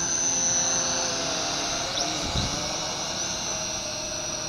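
Quadcopter motors and propellers whining steadily in flight, the pitch wavering slightly as the drone is steered around.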